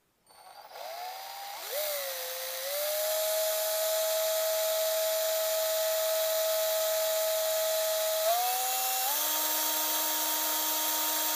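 Cordless drill starting up and running at low, steady speed as it drives a 5 mm glass drill bit into a glass test tube, with the motor's whine and a high hiss. Near the end the whine steps up in pitch twice as the drill speeds up.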